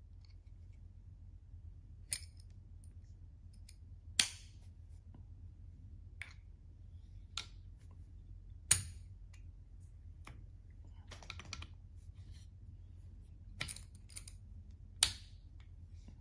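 Quick-release aluminium barbell collar handled on a barbell sleeve: its lever snaps with a series of sharp clicks, three of them much louder than the rest, and a short metallic rattle and scrape as the collar is worked along the sleeve.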